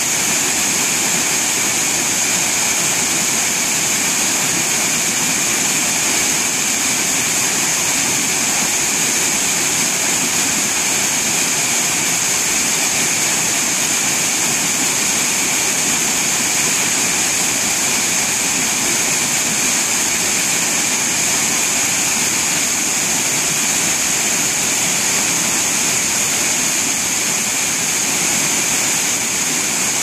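Small waterfall pouring over rocks into a churning plunge pool: a steady, even rush of falling water with a bright hiss.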